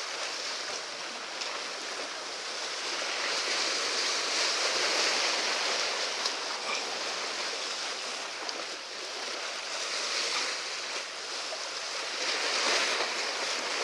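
Sea waves washing against the concrete tetrapods of a breakwater: a steady wash of water that swells and eases.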